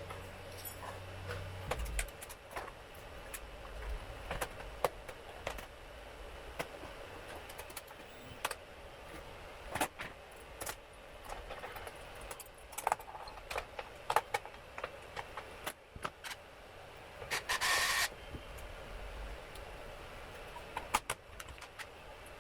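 Scattered small clicks and taps of tools and small hard parts being handled during the console repair, with a short burst of rustling or scraping about seventeen seconds in.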